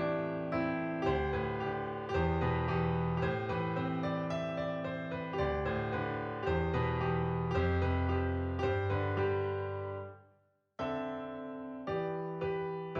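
Background music on piano-like keyboard, a steady run of notes that fades out about ten seconds in; after a brief gap a new piano passage starts.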